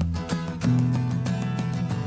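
Instrumental passage of recorded music: guitar plucked and strummed in a steady rhythm over low bass notes, with no singing.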